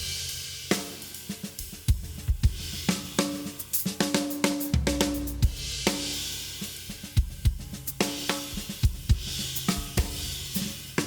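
Acoustic drum kit played in a steady groove: bass drum and snare hits under hi-hat and crashing cymbals.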